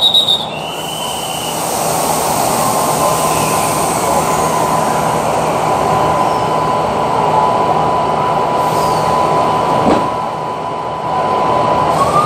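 Passenger train at the platform, starting its departure: a steady high squeal of about ten seconds that rises in pitch near the end, over a low steady hum. A short high whistle sounds in the first second or so.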